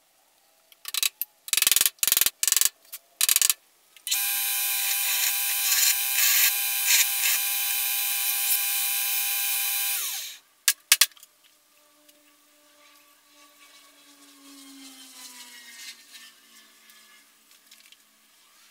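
A few short rasping strokes, then a Ryobi combination bench grinder and belt sander running loud and steady, grinding. About ten seconds in it is switched off, and its motor note falls slowly and faintly as the wheel and belt spin down.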